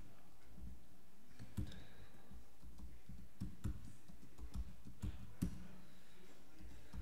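A handful of separate keystrokes on a laptop keyboard, spaced irregularly, as a password is typed in at a terminal prompt.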